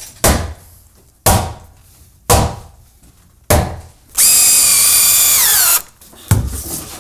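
Four hammer blows about a second apart, knocking a temporary wooden post up tight under the beam. Then a power drill runs for about a second and a half driving a fastener, its pitch dropping as it stops, followed by one more knock.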